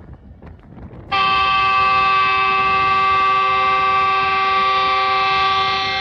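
A locomotive horn sounds one long, loud, steady blast. It starts suddenly about a second in and holds on with several tones at once. It is heard from a coach of the moving passenger train, over the train's running rumble and wind noise.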